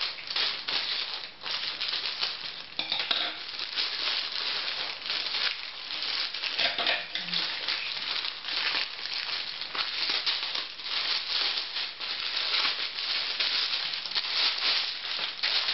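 Thin black plastic postal bag crinkling and rustling without a break as it is cut open with scissors and handled.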